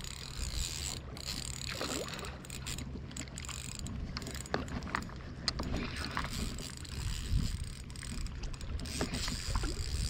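Daiwa Fuego 3000 LT spinning reel being wound under load while a fish is played on a bent rod, with scattered short clicks over water noise.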